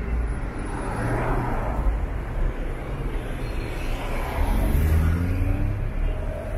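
Slow city street traffic: car engines running in a dense queue with a steady low rumble, and one engine rising in pitch as it pulls away about four seconds in.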